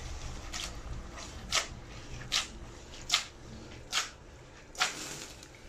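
Fettuccine being tossed in a frying pan with hot oil and breadcrumbs. Each flip gives a short swish, six in all, a little under a second apart.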